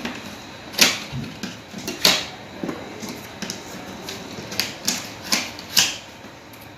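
Irregular sharp plastic clicks and snaps, about eight of them, as the snap-on covers of PVC wiring channel are prised open.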